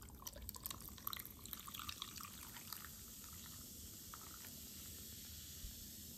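Lightly carbonated soda poured from an aluminium can over ice cubes in a glass, with many small clicks and splashes in the first few seconds, settling into a steady faint fizzing hiss.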